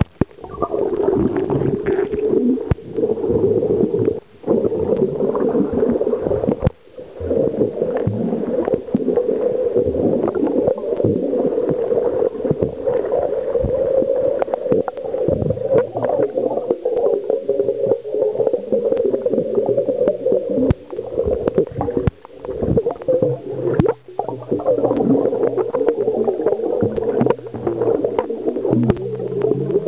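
Water heard from a camera held underwater: muffled sloshing and gurgling with frequent short knocks and clicks. A low steady hum comes in during the second half.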